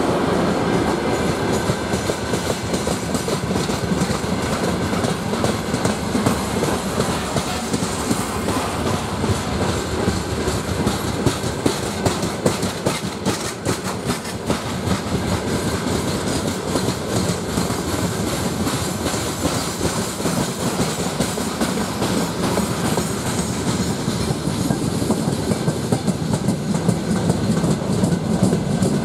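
Freight wagons, open gondolas and hoppers, rolling past at speed: a steady rumble of wheels on rail with a rapid clickety-clack over the rail joints.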